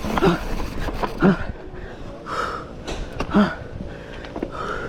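A person breathing hard, with short voiced gasping breaths roughly once a second and breathy hisses between them, over a steady low rumble.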